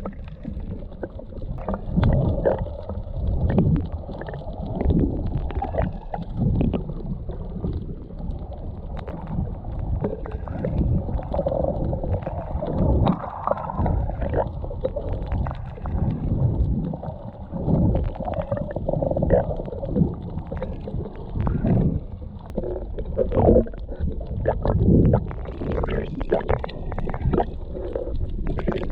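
Muffled water sloshing and gurgling as a GoPro picks it up while snorkelling, in irregular low surges every second or two. The sound is dull, with little treble.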